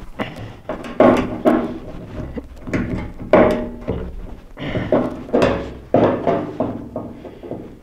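Large screwdriver forced against a rusted cam-lock fastener on a tractor's sheet-metal cowl: a run of clunks and knocks, about one every half second to second, with the hollow cowl ringing briefly after each. The fastener is rusted in place.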